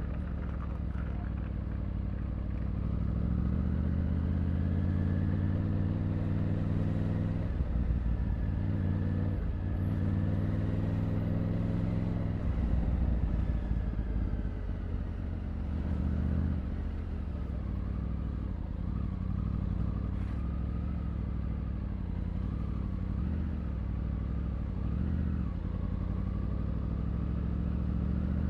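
Triumph Tiger 900's inline three-cylinder engine pulling through city traffic, its note climbing under acceleration and dropping back several times as it changes gear and throttles off.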